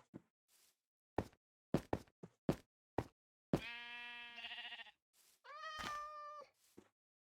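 A string of short sharp knocks, then an animal calling twice: a longer, lower call that wavers in its second half, followed by a higher, shorter call.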